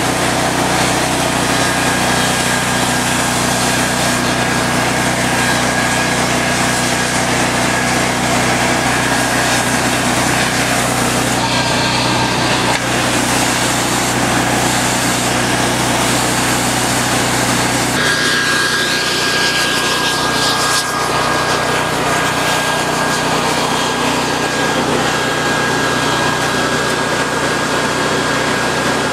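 Steady drone of a portable generator and a leaf blower forcing air into a forge fire, with the hum shifting slightly in pitch about two-thirds of the way through.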